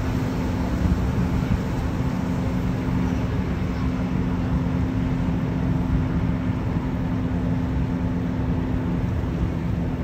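Shafer Queen tour boat's engine running steadily under way: a constant low hum over the rush of water and wind.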